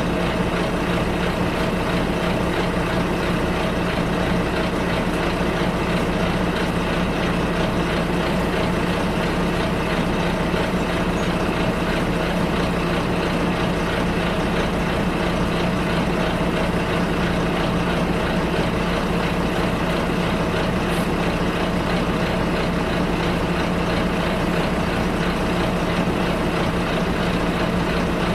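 Bus running steadily: a constant engine hum with an even wash of running noise and no distinct events.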